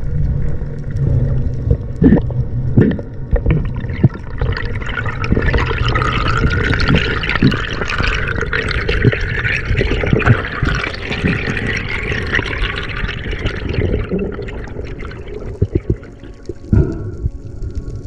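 Water sloshing and rushing, with scattered sharp clicks and knocks; a hissing rush swells about a third of the way in and dies away near the end.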